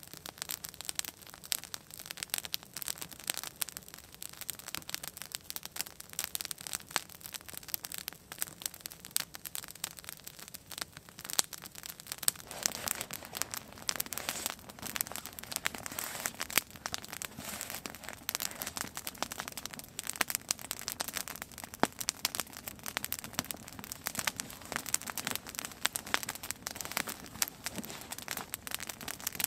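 Wood fire crackling with dense, irregular small pops and snaps. A soft rushing noise joins about twelve seconds in.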